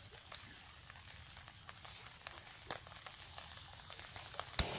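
Small metal clicks and taps from the folding pot-support arms of a compact canister backpacking stove being opened out by hand, with one sharp click near the end, over a faint steady hiss.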